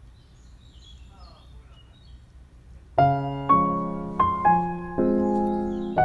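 Quiet outdoor ambience with a few faint bird chirps. About halfway through, background piano music comes in, with a new note or chord struck about every half second.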